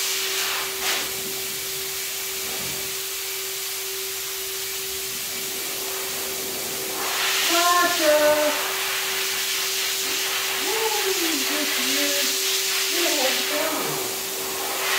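A steady, even hiss of a running fan-like machine with a constant hum underneath. Short, high-pitched wavering vocal sounds come in about halfway through and again a little later.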